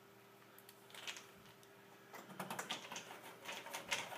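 Small irregular clicks and ticks of a No. 2 Phillips screwdriver seating and turning a screw into a copier's sheet-metal side panel. The clicks start about a second in and come thicker in the second half.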